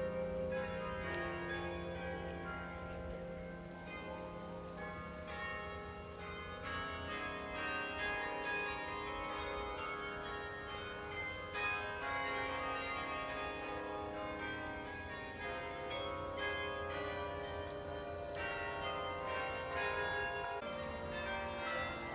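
Carillon bells playing a melody, each struck note ringing on under the next.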